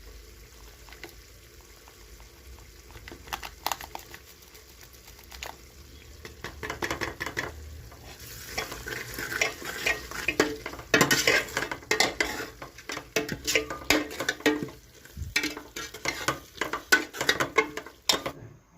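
A spoon stirring and scraping food frying in a pan, clinking against the pan over a steady sizzle. The stirring gets louder and busier from about six seconds in.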